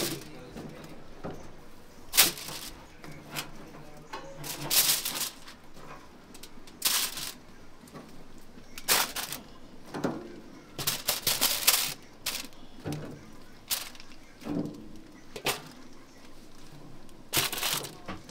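Aluminium foil crinkling and metal tongs clacking against a stainless steel bowl as grilled chicken pieces are laid in, in short irregular bursts every second or two.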